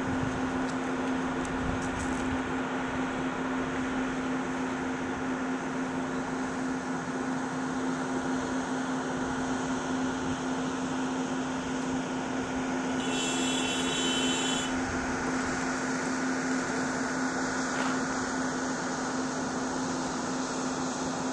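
A steady machine hum with one constant low tone, unchanging throughout. About two-thirds of the way through, a short high-pitched sound lasts a second or so.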